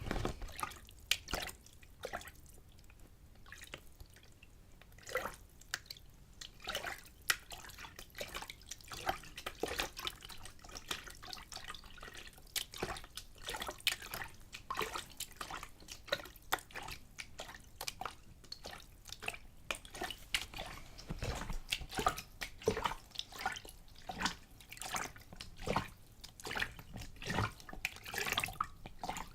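A little water splashed back and forth inside a lidded container: irregular small splashes and drips, some in quick clusters, with short quiet gaps between.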